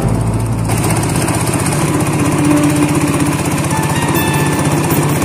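Engine of a small outrigger boat running steadily under way, a fast, even chugging, over the rush of water along the hull.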